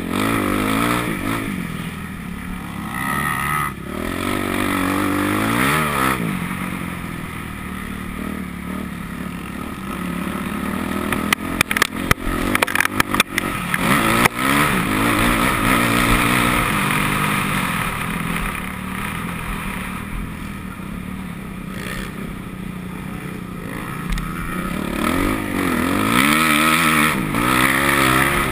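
Motocross bike engine being ridden hard, the revs rising and falling again and again through the gears and corners. About halfway through comes a run of sharp knocks and clatter.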